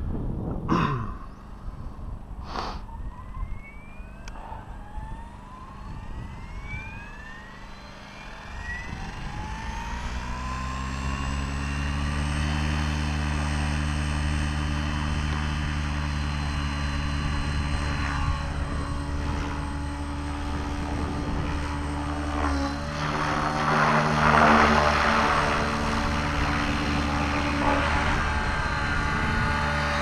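Electric T-Rex 600 RC helicopter with a brushless motor spooling up on the ground: a whine rising steadily in pitch over the first ten seconds or so, then settling into a steady rotor and motor tone. About two-thirds of the way in a louder rushing noise swells up, which fits the helicopter lifting off and climbing.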